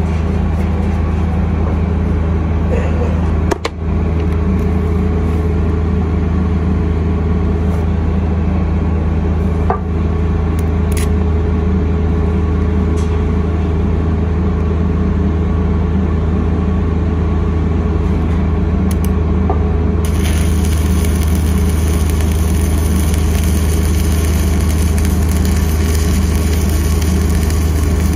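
Engine-driven welding machine running with a steady low drone. About two-thirds of the way through, the stick-welding arc is struck and crackles with a steady hiss over the engine.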